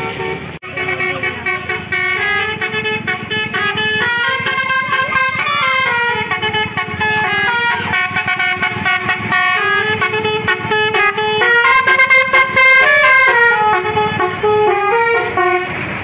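Indonesian tour bus's Basuri telolet horn playing a quick melody of stepped notes, with a brief sharp break about half a second in.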